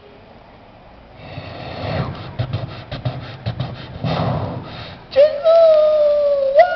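A quick run of clicks and taps with breathy sounds, then a dog howling: one long howl that starts about five seconds in and falls slowly in pitch.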